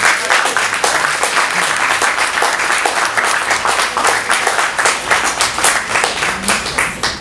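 Audience applauding at the end of a spoken-word poem: a dense, steady run of claps that stops sharply about seven seconds in.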